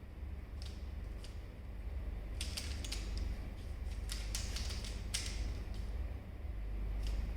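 A plastic 3×3 Rubik's cube being turned fast during a speed solve: quick runs of clicking, scraping layer turns in bursts with short pauses between them, over a steady low hum.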